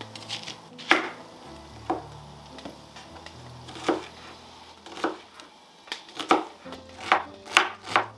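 Knife chopping onion: single sharp strokes at uneven intervals, a second or more apart at first and coming quicker near the end, over faint background music.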